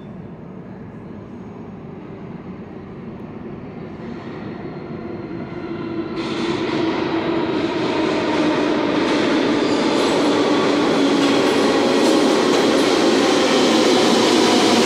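A New York City subway train approaching and entering the station, its rumble growing steadily louder. About six seconds in the sound turns sharply brighter and louder as the train comes into the platform, and it stays loud to the end.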